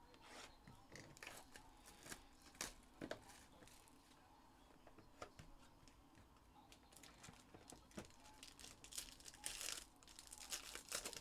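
Faint crinkling and tearing of a 2022 Bowman Inception trading-card pack's wrapper being opened by hand, with scattered small clicks of cardboard handling. The tearing is densest near the end.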